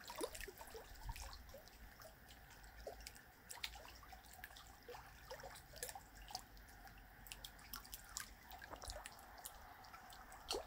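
Faint water dripping and trickling, with irregular small drops and splashes.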